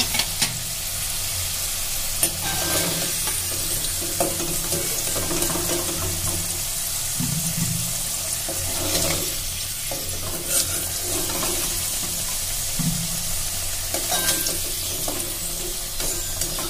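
Potato pieces frying in hot oil in a metal kadai, a steady sizzle. A few sharp clicks and scrapes come from a metal spoon against the pan as the fried potatoes are stirred and lifted out.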